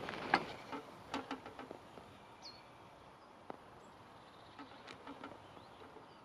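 Quiet outdoor ambience with a few light clicks and knocks in the first couple of seconds, then one brief high chirp a little before the middle.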